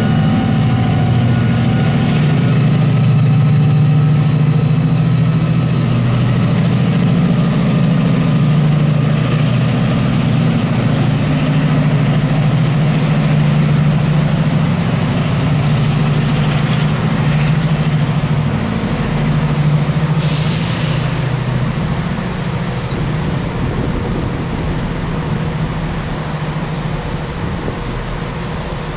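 Diesel train's engine running at the station, with a faint high whine that slowly rises over the first twenty seconds. Two short hisses of air break in, about ten seconds in and again about twenty seconds in.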